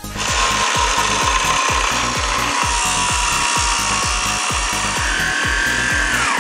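Angle grinder cutting metal: a steady high whine over harsh rasping, dipping in pitch near the end. A background music track's bass beat thumps about three times a second underneath.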